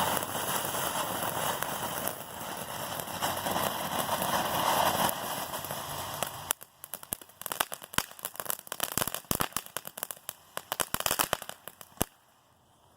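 Consumer firework fountain (Everlasting Mayhem, a fan-shaped crackling fountain) spraying with a steady rushing hiss, then about six and a half seconds in switching to a dense run of sharp crackling pops that stops suddenly near the end.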